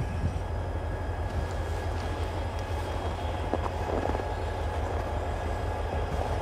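Diesel locomotives running in a rail yard, a steady low rumble, with a couple of faint knocks near the middle.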